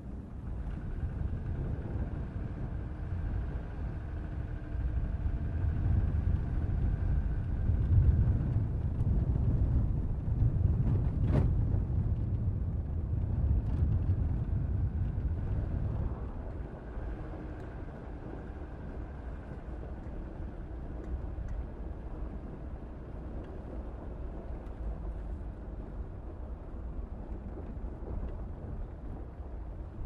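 Car on the move: steady low road and engine rumble, louder through the first half and easing off a little past halfway.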